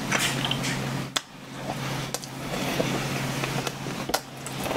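Milk pouring from a carton into a glass mug, followed by a few sharp knocks as the carton and glass are handled and set down, over a steady low hum.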